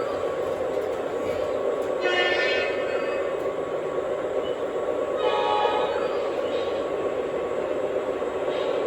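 Lionchief Santa Fe O gauge model locomotives running on the track with a steady motor and wheel drone. Two short electronic horn blasts from the locomotives' sound system come about 2 and 5 seconds in.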